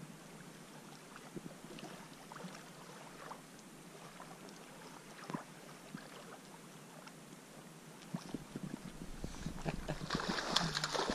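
Small waves lapping faintly at the shore, then, about nine or ten seconds in, a hooked brook trout splashing and thrashing at the surface in shallow water, much louder than the lapping.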